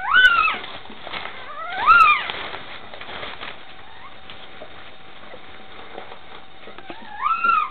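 Newborn Doberman puppy crying: three short, high squeals, each rising and then falling in pitch, two close together at the start and a third near the end.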